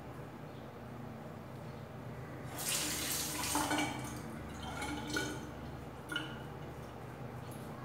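Water from a tap rushes for about a second and a half, starting a little over two seconds in, then splashes briefly twice as the razor is rinsed between shaving strokes.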